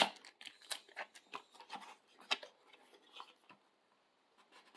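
Packaging of a smart-band box being opened and handled: a sharp click at the start, then a scatter of light clicks and taps that thin out over the last couple of seconds.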